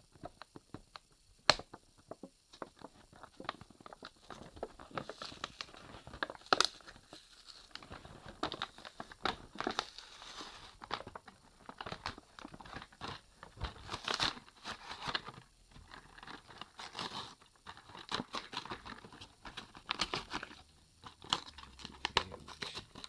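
Toy packaging being opened by hand: plastic and cardboard crinkling and tearing, with many sharp clicks and taps.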